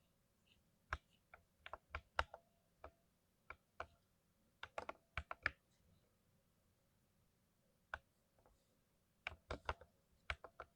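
Keystrokes on a lubed mechanical keyboard, typed in irregular clusters of clicks with a pause of about two seconds midway.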